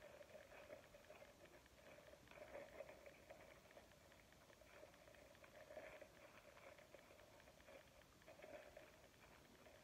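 Near silence with faint, intermittent soft rubbing: a piece of plastic being drawn over the rim of a soft clay slab cup to compress and smooth it.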